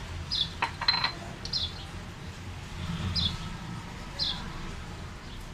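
A small bird chirping in the background, four short chirps each falling in pitch. About a second in, a spoon clinks twice against a ceramic plate.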